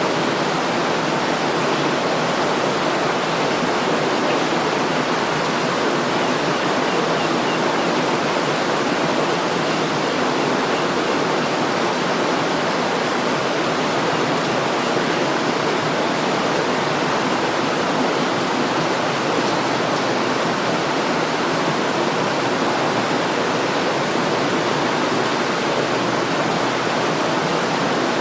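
River water flowing, a steady rushing noise without breaks.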